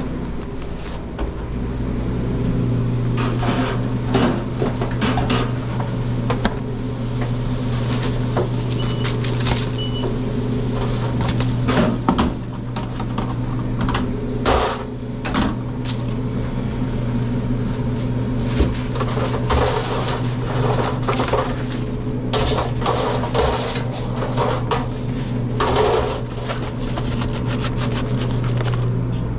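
Food-truck kitchen handling: a metal fry basket clinking and clattering as fries are shaken out at the fry station, and paper crinkling as an order is wrapped, over a steady low machine hum.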